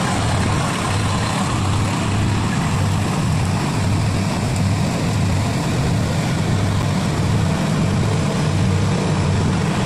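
Kubota Harvest King combine harvester running steadily while it cuts rice paddy: a constant low engine hum under a dense, even mechanical din.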